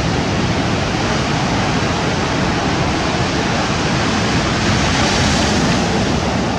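Sea surf breaking and washing over a pebble beach: a steady rush of waves that swells a little about five seconds in.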